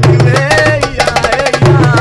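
Darbuka (goblet hand drum) played with bare hands in a quick, dense rhythm, with a man singing over it.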